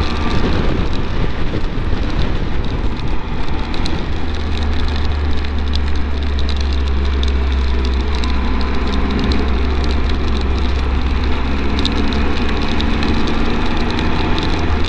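Steady rush of wind and road noise over the low drone of a Triumph Tiger 1200's three-cylinder engine, heard from a helmet-mounted camera at a cruising speed of about 40 on a wet road. Small crackles of raindrops hitting the microphone are scattered throughout.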